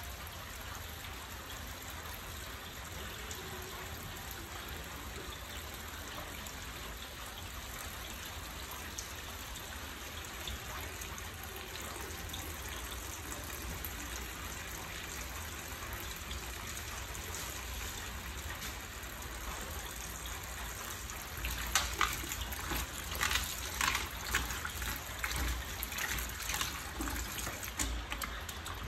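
Tap water running steadily into a plastic basket of cut fruit chunks in a stainless-steel sink. About three-quarters of the way through, hands start rubbing and turning the wet pieces, adding irregular splashes and clacks.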